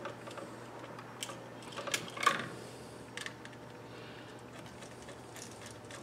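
A few light clicks and scrapes of a copper wire being bent and fastened onto a wall switch's screw terminal, the loudest a little over two seconds in, over a low steady hum.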